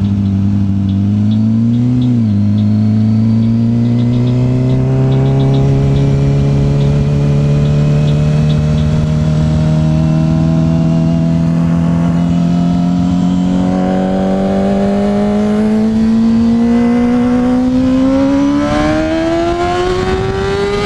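A 2007 Yamaha R6's inline-four engine accelerating under steady throttle, its pitch rising slowly, with a brief dip and recovery about two seconds in, then climbing faster near the end. Wind noise rushes beneath it.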